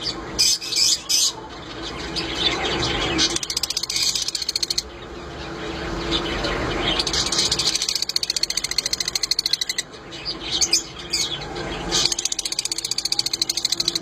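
Masked lovebirds chattering: a continuous rapid, shrill twittering, with several sharper loud squawks about half a second in and again around two-thirds of the way through.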